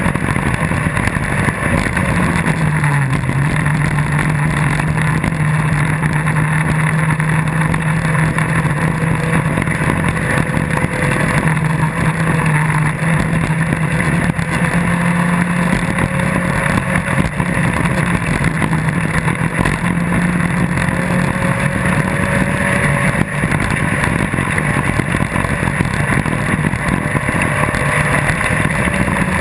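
Off-road rally buggy's engine running hard at a steady pitch as it drives on a gravel road, over a constant rushing noise. The engine note dips about two to three seconds in, then holds level.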